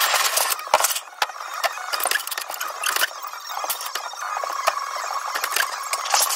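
Thin aluminum sheet stock and the metal parts of a sheet-metal brake clinking, rattling and scraping as the metal is handled and worked. Many sharp clicks and clanks come in irregular succession.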